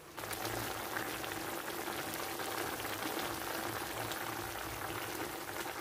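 Chicken adobo boiling in its soy sauce and water braising liquid in the pan: a steady bubbling with many small pops that sets in suddenly at the start.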